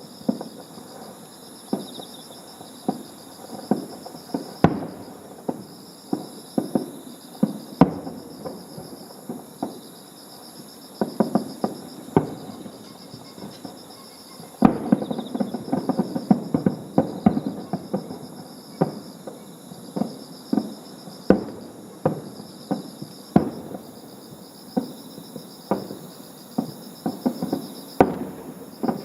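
Fireworks display with aerial shells bursting one after another: sharp bangs, some in quick crackling runs, getting louder and busier about halfway through. Insects chirp steadily underneath.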